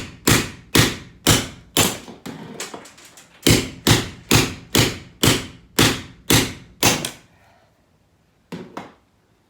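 Hammer striking a chisel to shear rivet heads off, about two blows a second, with a brief pause partway through. There are a dozen or so sharp metallic strikes, each with a short ring, then two lighter taps near the end.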